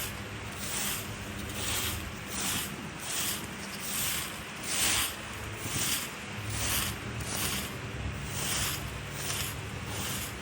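Dry leaves being scraped together across the ground, a rhythmic series of scraping swishes about two a second.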